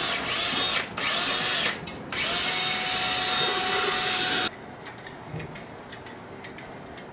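Power tool scrubbing the rear differential cover in three bursts, each opening with a rising whine as it spins up. The third and longest burst cuts off suddenly about four and a half seconds in.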